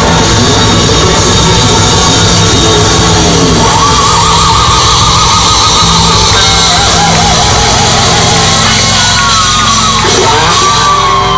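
Live rock band playing loud and steady on electric guitars, bass guitar and drums. From about four seconds in a high wavering, bending melody line rises above the band.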